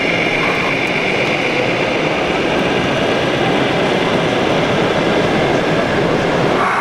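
Steady mechanical running noise of an RC Scania truck pulling a loaded low-loader trailer.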